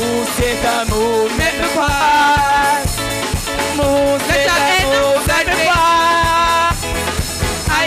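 A gospel chorus sung with a band, voices holding wavering sung notes over a steady drum beat.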